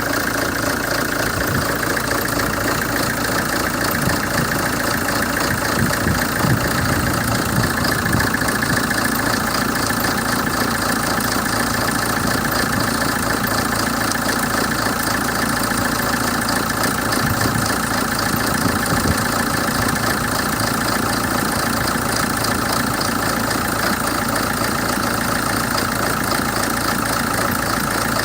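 Hyundai Terracan CRDi common-rail diesel engine idling rough and lumpy, with an uneven low beat: the rough idle fault.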